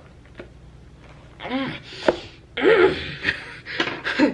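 Three drawn-out wordless vocal cries, each rising and falling in pitch like an 'ooh', during the combing of tangled hair. There are a few faint clicks near the start.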